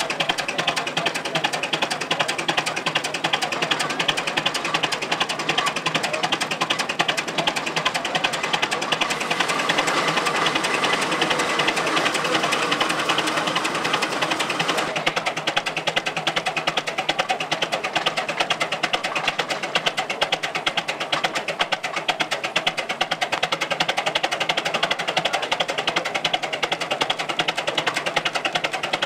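Belt-driven threshing machinery running: a steady, fast, even clatter, a little duller from about halfway through.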